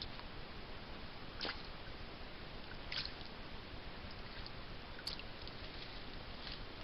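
Steady hiss from a trail camera's microphone, with four faint short clicks spaced roughly a second and a half apart.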